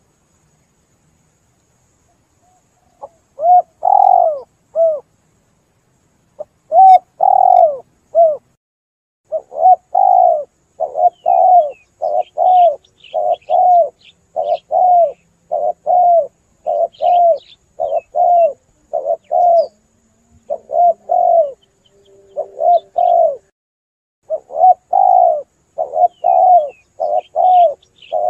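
Spotted dove (tekukur) cooing: after about three seconds of silence, the dove repeats its short cooing notes in quick runs, a couple of notes a second, with brief pauses between runs. Small birds chirp faintly in the background.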